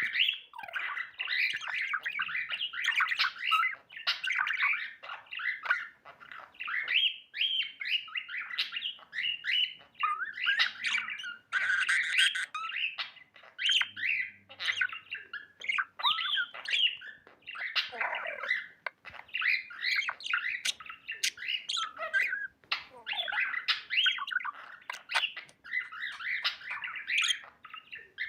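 Budgerigars chirping and chattering continuously, rapid warbles and short squawks with brief pauses.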